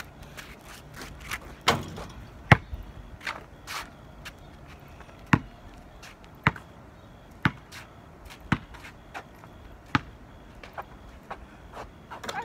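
Basketball dribbled on asphalt: about nine sharp bounces at uneven intervals of roughly a second, the loudest about two and a half seconds in.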